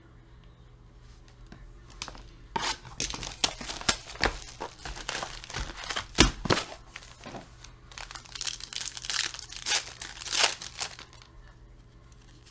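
Card packaging crinkling and tearing as a 2019 Panini Contenders Draft Picks football card box is opened, its packs pulled out and a pack wrapper ripped open. The crackly rustling comes in quick irregular bursts from about two seconds in until shortly before the end, with one sharp louder rip near the middle.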